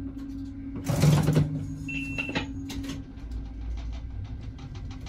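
AKN VTA diesel railcar standing at the platform with its engine running as a steady hum; about a second in the doors close with a loud hiss and thump, followed by two short high beeps and a run of faint clicks.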